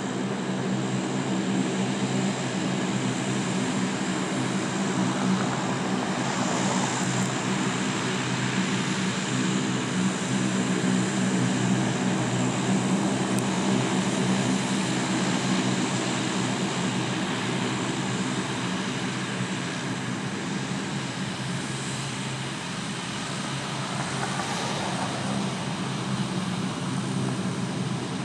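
The four Allison T56 turboprop engines of an RCAF CC-130H Hercules running while it taxis: a steady, loud propeller drone with a thin high turbine whine above it. The sound dips slightly about four-fifths of the way through as the aircraft turns.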